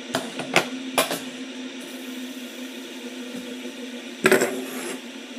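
Fidget spinners being handled on a table: a few sharp clicks and knocks in the first second, then a louder metallic clatter about four seconds in, over a steady low hum.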